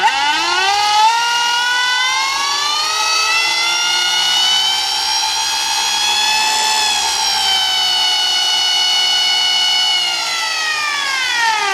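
Golden Motor 5 kW 48 V electric outboard motor, with its controller's speed limiter removed, whining as it spins up, rising in pitch for about six seconds. It holds at a high speed, then winds down near the end. The speed is high enough that the owner fears it might damage something.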